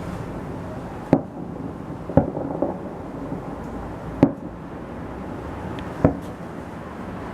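Fireworks shells bursting in the sky: four sharp bangs at uneven intervals, the second trailing into a brief crackle, over a steady low rumble.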